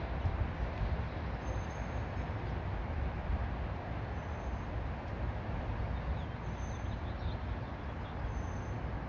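Steady wind buffeting the microphone with a fluctuating low rumble, with a few faint, brief high chirps over it.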